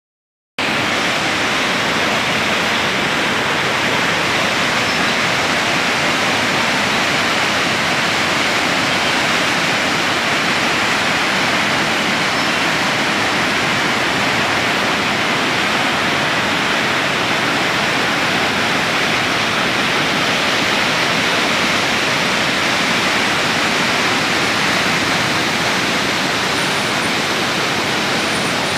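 Swollen, muddy river in flood after heavy rain: fast floodwater rushing and churning in a steady, loud noise that starts about half a second in.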